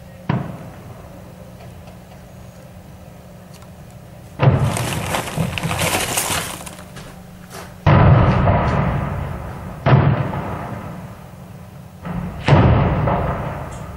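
Heavy weapons fire and explosions in a street battle around tanks. A sharp crack comes first, then about three seconds of dense crackling, then three loud booms about two seconds apart, each with a long echoing fade.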